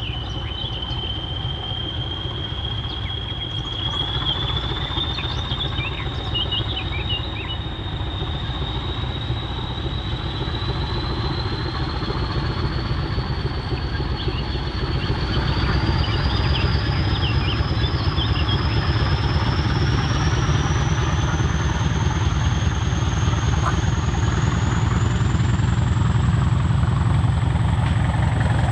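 Class 20 diesel locomotive working under power as it approaches: the English Electric eight-cylinder engine running heavily, with a turbocharger whistle that climbs steadily in pitch the whole time, the sound growing louder as the locomotive nears.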